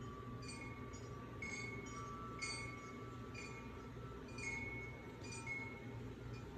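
Wind chimes ringing at irregular moments, a struck note roughly every half second with each tone lingering, over a low steady hum.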